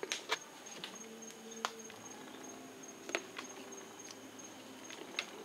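A few light, sharp clicks and taps, scattered a second or more apart, from a fillet knife cutting into a flounder on a plastic table. A faint steady high tone runs underneath.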